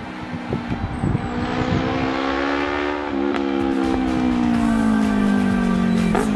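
2015 Yamaha YZF-R3's parallel-twin engine, running through a full Akrapovic titanium exhaust with no dB killer, as the bike approaches and grows louder. The engine note climbs for about three seconds, then falls steadily, with a sharp crack near the end.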